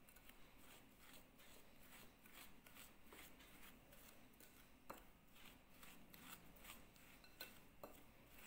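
Faint crumbly rustling and scraping as crushed biscuit crumbs are stirred and worked by hand in a glass bowl, with a few light clicks about halfway and near the end.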